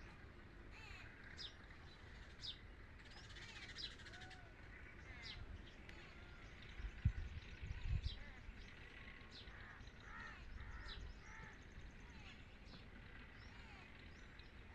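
Several birds calling and chirping, with short sharp chirps and harsher arched calls throughout. Two low thumps come about seven and eight seconds in.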